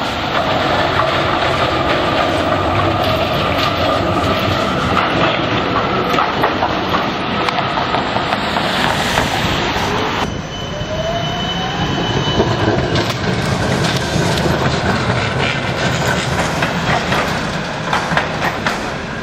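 Melbourne trams running on wet street track: a Z-class tram approaching with a wavering whine and wheels clicking over the rail joints. After an abrupt change about ten seconds in, a rising whine from another tram, with a Combino tram coming round a curve at the junction near the end.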